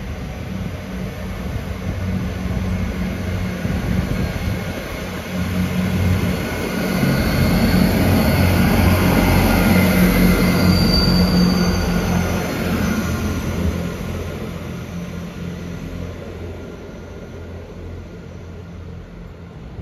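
Class 158 diesel multiple unit pulling out of the station under power, its diesel engines growing louder as it passes, loudest about ten seconds in, then fading as it draws away down the line.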